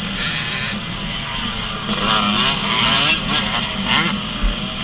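Dirt bike engine revving on a motocross track, its pitch rising and falling as the throttle opens and closes.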